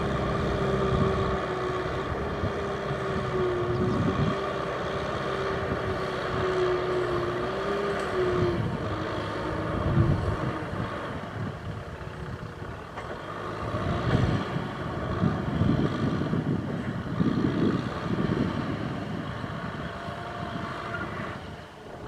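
Tractor engine running while ploughing through deep mud: a steady note for the first eight seconds or so, then uneven surges in the low end.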